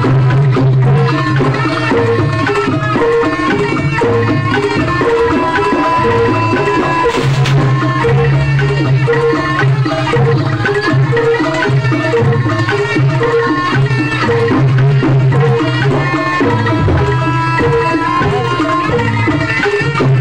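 Live jaranan gamelan music with the hand-played kendang drum keeping a busy rhythm, a large hanging gong and struck bronze pots repeating their notes, and a sustained melody line held above them.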